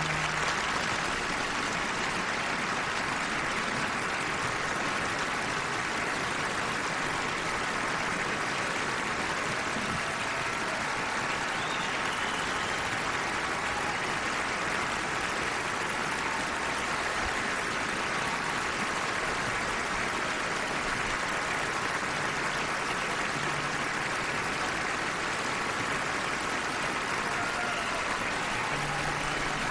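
A large audience applauding steadily and without a break.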